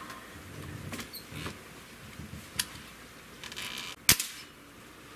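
Low handling knocks and small clicks as a breakbarrel air rifle is loaded and closed, then, about four seconds in, one sharp crack: a shot from a Hatsan 125 Sniper .22 gas-piston (Vortex) breakbarrel air rifle.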